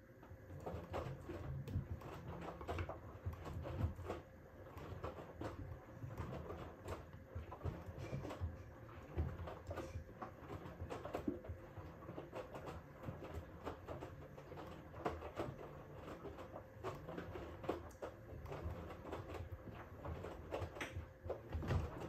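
Hoover H-Wash 350 front-loading washing machine tumbling a load of wet towels during its Cotton 60° wash: a low rumble from the turning drum, with uneven soft thuds as the towels drop, over a faint steady hum.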